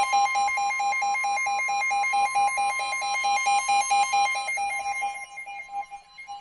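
NOAA Weather Radio warning alarm tone, one steady high tone, sounding together with a receiver's rapid alert beeping of about seven beeps a second. It signals that a warning is about to be read; the beeping weakens after about five seconds.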